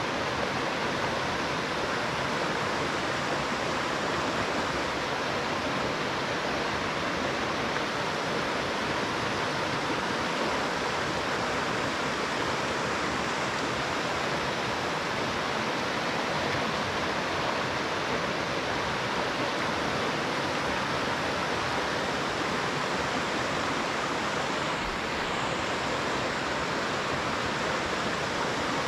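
A shallow, rocky mountain river running over stones and small riffles: a steady, unbroken rush of water.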